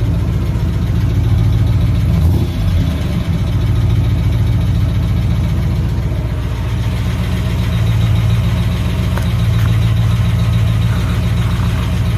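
5-litre V8 engine running steadily at idle, with lifters the owner says are worn, making it tappy.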